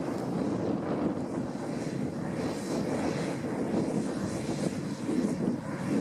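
New Holland T7040 tractor's six-cylinder diesel engine running steadily under load while pulling a seed drill, a low, even drone.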